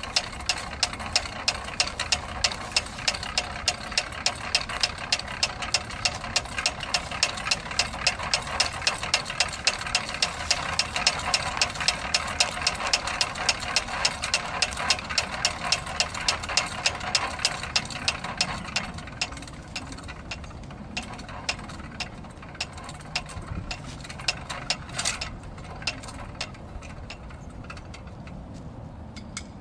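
A machine running with an even, sharp ticking of about four clicks a second; the ticking fades and turns irregular about two-thirds of the way through.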